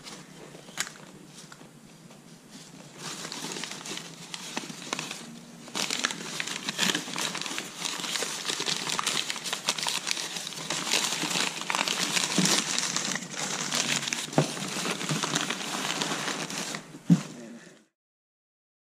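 Brown kraft packing paper being crumpled and rustled by hand, a dense crinkling that grows louder about three seconds in, with a few sharp knocks. The sound cuts off suddenly to silence near the end.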